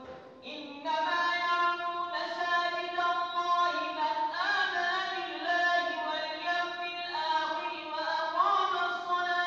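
An imam's high male voice reciting the Quran in the melodic, chanted style of tarawih prayer: long held notes with ornamented turns and upward slides in pitch. A brief pause for breath right at the start, with the voice resuming just under a second in.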